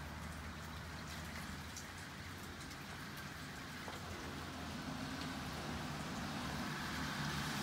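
Light rain: scattered drops ticking over a steady hiss, with a steady low hum underneath.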